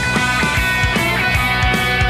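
Live rock band playing: electric guitars hold sustained chords over bass guitar and a steady drumbeat.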